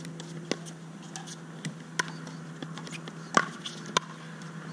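Pickleball rally: sharp pops of paddles striking the plastic ball, four in all, the loudest about three and a half seconds in, over a steady low hum.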